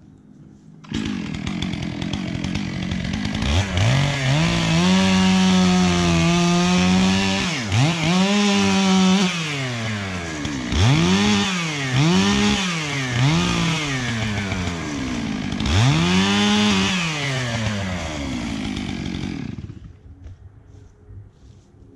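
Two-stroke chainsaw cutting into a tree trunk during felling. The engine pitch dips and climbs again over and over as the throttle and load change, and the saw cuts off near the end.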